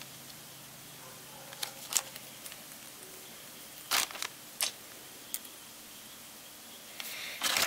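Light handling noises: a few soft clicks and rustles while a USB cable is uncoiled, then plastic wrapping starting to crinkle near the end.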